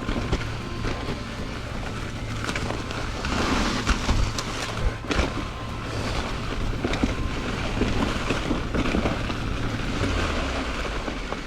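Mountain bike descending a dirt singletrack at speed: wind rushing over the microphone, tyres rumbling on the trail and the bike clattering over roots and rocks in frequent short knocks.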